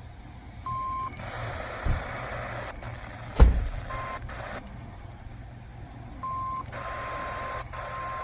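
Weather radio reception with static hiss that switches on and off abruptly, and a steady tone near 1 kHz cutting in and out in short pieces: about a second in, around four seconds in, and again from about six seconds on. The tone matches NOAA Weather Radio's 1050 Hz warning alarm tone breaking up on a weak signal. A sharp thump about three and a half seconds in is the loudest sound.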